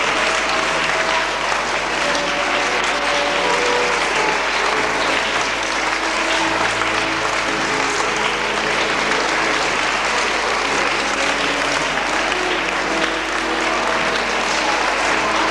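Sustained applause from a crowd of children and adults, with music playing underneath.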